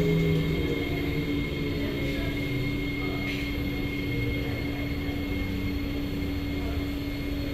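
Steady electrical hum and running noise inside a Kawasaki Nippon Sharyo C751B MRT car, with a fainter pitched whine from the train's equipment fading out in the first second or two.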